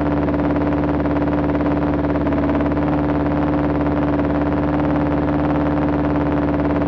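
Motorcycle engine idling at a steady, unchanging pitch, a constant buzzing hum heard close and somewhat distorted.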